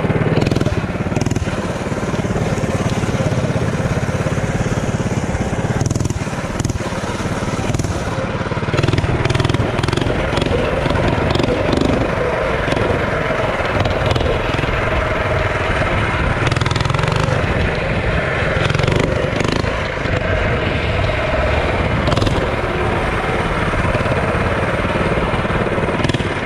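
Small single-cylinder mini bike engine running under throttle as the bike is ridden, its speed rising and falling.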